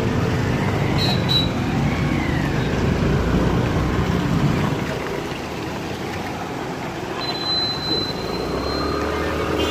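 Street traffic of motorbikes and scooters passing close by, a steady din of engines and tyres. A thin high tone sounds briefly about a second in and again for about two seconds near the end.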